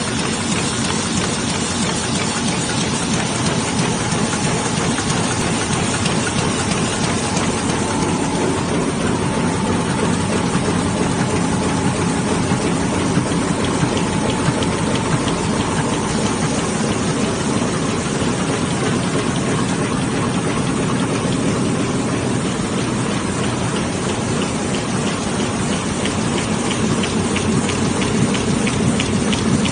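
Heidelberg sheet-fed printing press and factory machinery running: a steady, dense mechanical clatter with no let-up, turning into a fast, even ticking near the end.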